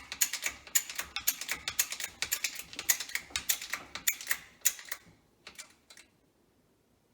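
Rapid, irregular metallic clicking from a shop press pushing a water-pump bearing down flush on its shaft, with steel bearing races used as a spacer. The clicking stops about five seconds in, and two faint clicks follow.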